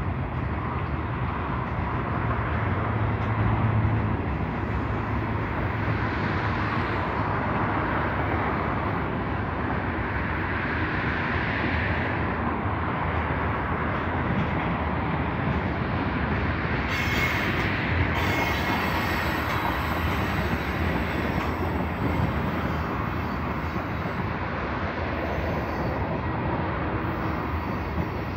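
Freight cars of a long mixed freight train rolling past: autoracks, covered hoppers and tank cars on steel wheels, a steady rolling rumble with no break, and a brief higher hiss a little past halfway.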